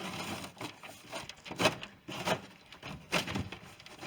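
Cardboard and wooden crate packaging being handled and rummaged through, rustling and scraping, with a few sharp knocks.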